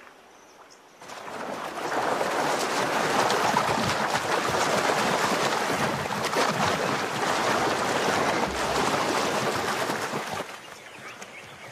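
Loud, continuous splashing of animals moving through shallow floodwater. It starts abruptly about a second in and falls away near the end.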